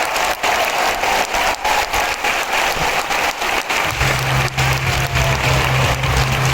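Stadium crowd applauding and cheering, punctuated by scattered sharp firework bangs. About four seconds in, a steady low musical note comes in beneath the crowd.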